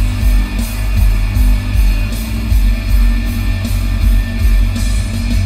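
Live rock concert music with electric guitar and a heavy kick drum, played loud through a Toyota Alphard 30's aftermarket Ground Zero car audio system with twin subwoofers. The deep bass pulses strongly on the beat.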